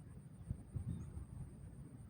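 Wind buffeting the microphone in uneven low rumbles, with a faint steady high-pitched pulsing whine and a few faint bird chirps.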